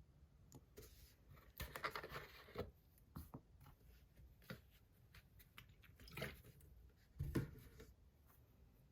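Faint handling sounds of small magnets being taken off a fidget and cleaned: two brief rubbing scrapes, a few light clicks, and a soft knock about seven seconds in, the loudest of them.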